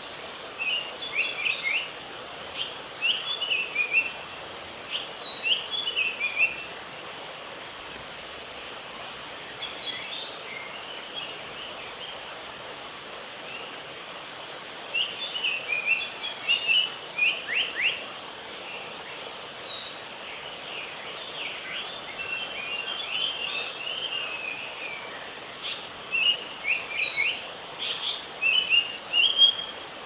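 Male Japanese paradise flycatcher singing: several bouts of quick, high chirped and whistled phrases, each lasting a few seconds, with pauses between them, over a steady background hiss.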